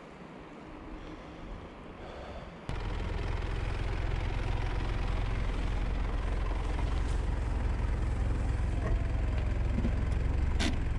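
Car engine idling: a steady low rumble that starts suddenly about three seconds in, after a stretch of faint outdoor background noise.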